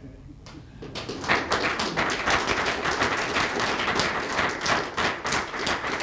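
Applause from a small audience, beginning about a second in, with individual claps standing out.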